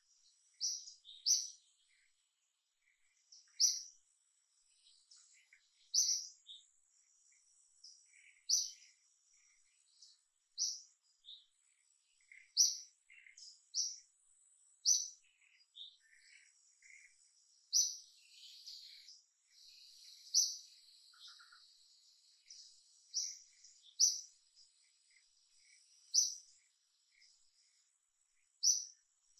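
Small birds chirping: short, high single notes every second or two, with fainter calls in between and a faint steady high tone underneath.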